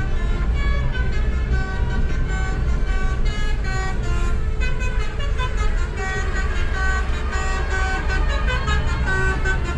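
Bus telolet horn (a Basuri multi-tone horn) playing a melody of short, stepped notes, over a steady low rumble.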